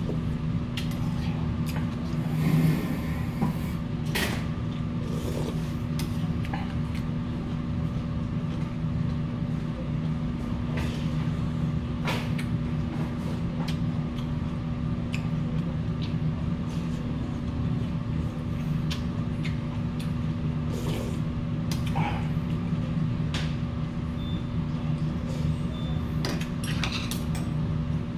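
Eating at the table: scattered light clicks and taps of a spoon and chopsticks against brass bowls of beef bone soup, over a steady mechanical hum.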